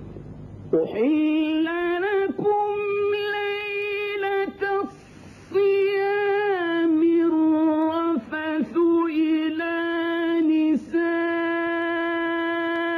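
A male Qur'an reciter chanting in melodic tajweed, one high voice drawing out long held notes with gliding ornaments. It comes in under a second in, with short breaks for breath, the longest about five seconds in.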